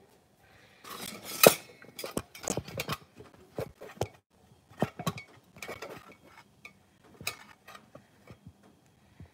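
Irregular clatter of kitchenware, knocks and clinks of dishes and pans being moved about, mixed with handling knocks as the phone is propped up beside the stove; the loudest knock comes about one and a half seconds in.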